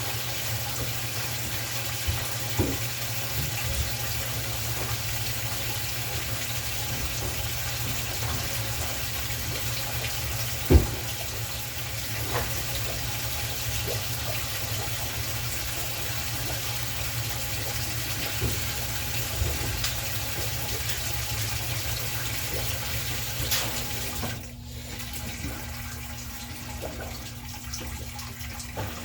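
GE top-load washer filling: water pouring into the new tub with a steady hiss over a low hum, broken by a few clicks and one sharp knock about 11 seconds in. About 24 seconds in the water flow stops and a quieter steady hum remains.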